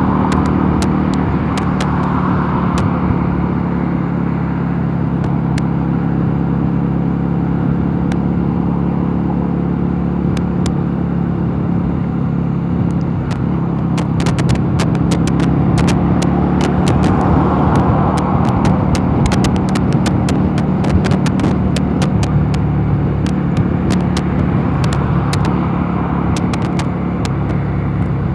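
Mondial Nevada 250 motorcycle engine running at a steady cruise, its pitch holding even, with wind rush that swells and fades a few times and scattered sharp clicks.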